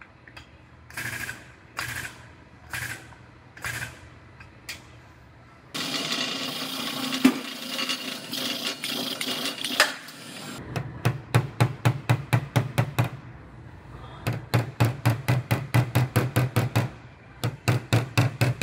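Body hammer tapping on a car's buckled sheet-steel quarter panel to relax the buckles: a few separate knocks, then rapid runs of light taps, about seven a second. In the middle, about five seconds of a steady noisy whirr.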